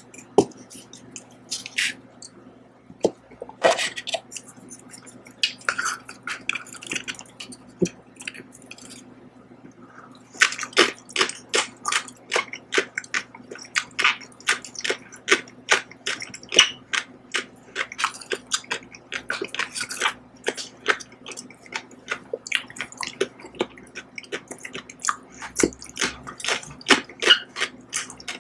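Close-miked chewing of Samyang Hot Chicken instant ramen: wet mouth clicks and smacks, a few scattered at first, then a steady run of about two or three a second from about ten seconds in.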